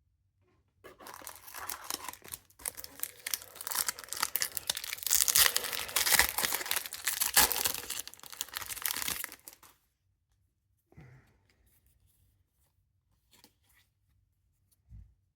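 Pokémon card booster pack wrapper being torn open and crinkled, a dense crackling tear lasting about nine seconds, then a few brief faint handling sounds near the end.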